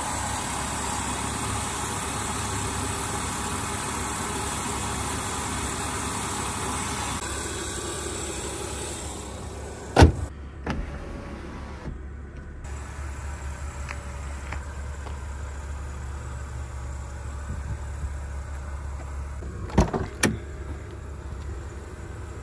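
BMW E36 328is with its inline-six engine running steadily at idle, under a louder hiss for the first nine seconds or so. A sharp click comes about ten seconds in, and two quick clicks near the end, as of the car's door or switches being worked.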